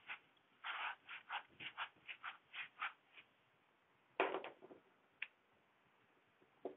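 Whiteboard duster rubbing across a whiteboard in quick back-and-forth strokes, about three a second, stopping about three seconds in. About a second later comes a sharper knock, the loudest sound here, followed by a couple of small clicks.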